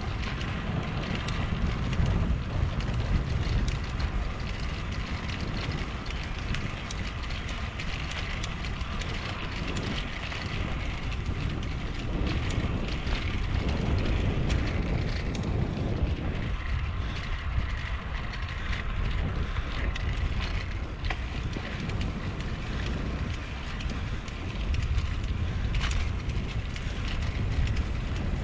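Wind buffeting the microphone of a camera moving along a concrete path, a steady low rumble mixed with the hiss of wheels rolling over the concrete and a few faint clicks.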